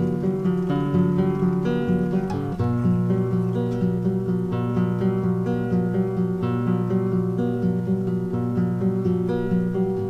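Background music: an acoustic guitar playing plucked notes in a steady rhythm.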